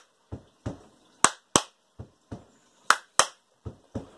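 Foot stomps and hand claps in a steady rhythm: two dull stomps, then two sharp claps, repeated, with three pairs of stomps and two pairs of claps.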